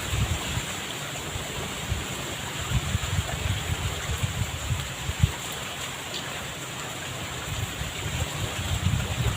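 Fast-flowing river water rushing steadily, with an uneven low rumble underneath and a single sharp knock about five seconds in.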